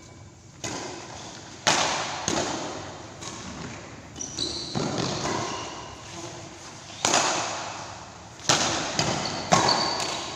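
Badminton rally: a string of sharp racket strikes on the shuttlecock, several of them loud and echoing in the large hall, with a few brief high squeaks of shoes on the court.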